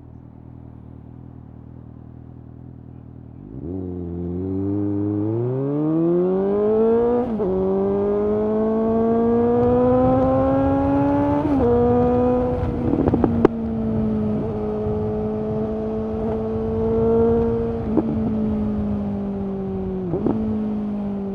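Suzuki GSX-S750's inline-four through a Yoshimura SQ11 exhaust with no dB killer and a decat pipe, running low at first, then accelerating hard about three and a half seconds in. The pitch climbs steeply, drops at two upshifts, then holds at steady high revs with a few sharp cracks and eases off near the end.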